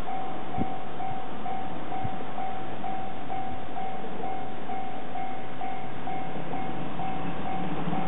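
Japanese level-crossing warning bell dinging steadily, about two tones a second. Over the last couple of seconds a low rumble grows beneath it as a 485 series electric train approaches.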